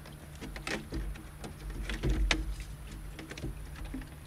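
Clicks, knocks and a few dull thumps of the BMW E36's plastic-tanked radiator and surrounding parts as the radiator is worked loose and lifted out of the engine bay.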